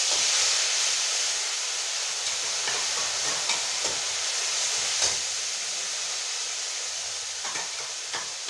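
Ground tomato puree hitting hot oil and cumin in a kadhai, sizzling loudly and slowly dying down. A spatula stirs through it with a few light clicks.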